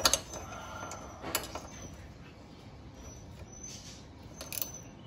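A few sharp metal clicks and taps as a bolt is fitted by hand into a motorcycle's steel rear fender bracket: one at the very start, another about a second and a half in, and a quick pair near the end.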